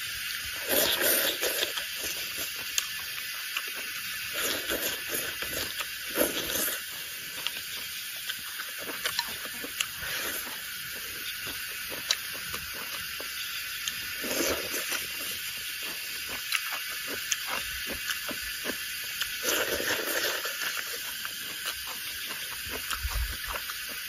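A person eating from a rice bowl with chopsticks: bursts of slurping and chewing at intervals as mouthfuls of rice and stir-fried pumpkin shoots go in, over a steady high hiss.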